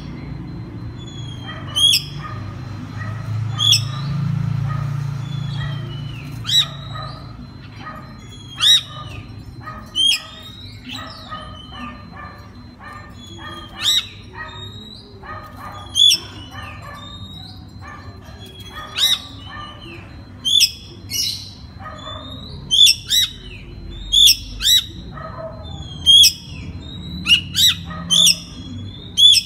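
Caged Oriental magpie-robin (kacer) singing: loud, sharp, high calls that dip in pitch, repeated every second or two and coming faster near the end, with softer, lower warbling notes between them.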